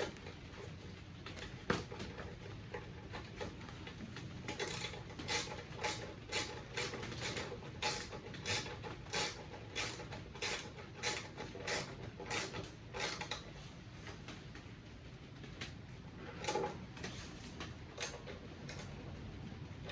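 Hand work on a snowblower's parts: a quick run of short, sharp mechanical strokes, about two a second for roughly nine seconds, then a few more strokes near the end.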